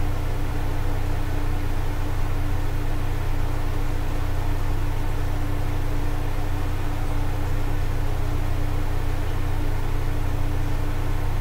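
Steady low machine hum with one constant mid-pitched tone over an even background hiss, unchanging throughout.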